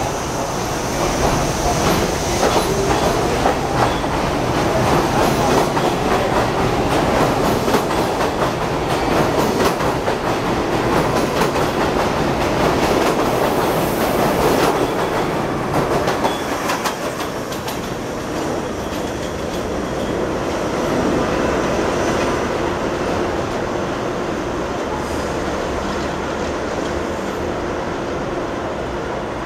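A New York City Subway J train running past on elevated track, its wheels clacking over the rail joints in quick repeated clicks over a loud rumble. The sound eases after about fifteen seconds into a steadier, quieter running noise with a faint steady hum.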